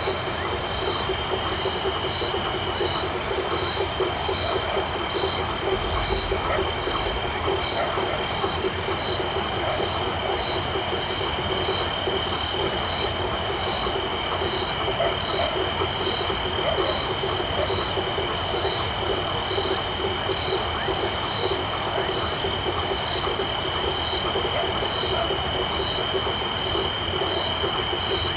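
Night chorus of frogs and crickets: a dense, continuous chatter of frog calls under a steady high insect trill, with a high chirp repeating at an even pace throughout.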